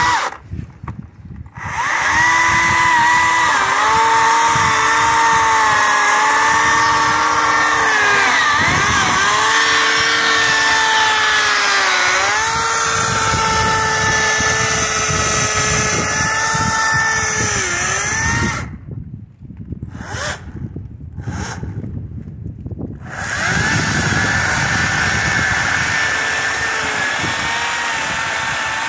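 Kobalt cordless electric chainsaw cutting a downed oak log: a steady motor whine whose pitch sags several times as the chain loads up in the cut. It stops about two-thirds of the way through, gives a couple of short blips, then runs steadily again.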